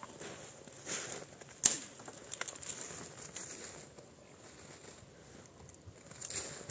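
Footsteps crunching in snow, with dry twigs rustling and snapping as they are gathered by hand. One sharp crack comes about a second and a half in, and it goes quieter for a couple of seconds near the end.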